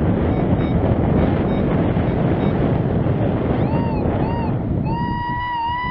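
Strong wind buffeting the microphone. About three and a half seconds in, a Nokta Legend metal detector gives two short warbling beeps, then a sustained tone that wavers slightly in pitch, signalling a target that reads 26 and is expected to be a nickel.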